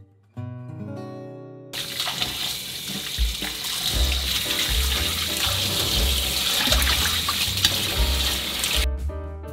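Kitchen tap running, its stream splashing into a bowl of vegetables in the sink as they are rinsed. It starts about two seconds in and stops suddenly near the end.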